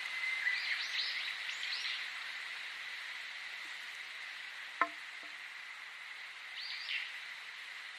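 Small birds chirping in quick clusters of short downward-sweeping notes during the first two seconds and again near the end, over a steady high drone, with one sharp click near the middle.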